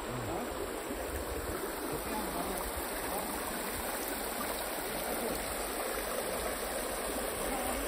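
A river flowing steadily, a constant rushing of water.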